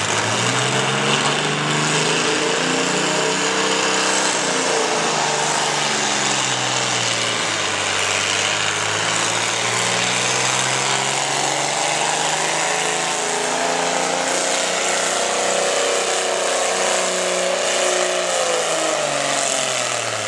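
Naturally aspirated Minneapolis-Moline pulling tractor engine, open stacks, revving loud under load against the weight sled. Its pitch rises for the first few seconds, falls back, then climbs again and holds high as the pull gets under way, dropping near the end.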